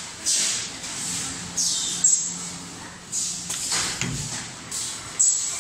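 Reverse-osmosis membrane rolling machine working, with short bursts of hissing about once a second as its pneumatic cylinders exhaust air, over a faint steady hum.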